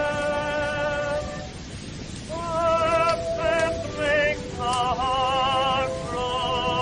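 Old early-1900s recording playing as if on a vintage radio: a melody of held notes with strong vibrato that drops out briefly about a second and a half in, then resumes, over a steady hiss.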